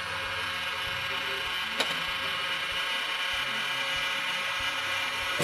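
Electric heat gun running with a steady whoosh, shrinking heat-shrink tubing over a wire-nut splice; a single sharp click about two seconds in.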